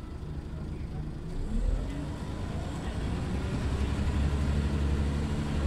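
Scania OmniLink articulated city bus engine, heard from inside the passenger cabin. About a second and a half in, the engine note rises as the bus pulls away, then it runs louder and heavier under load while accelerating.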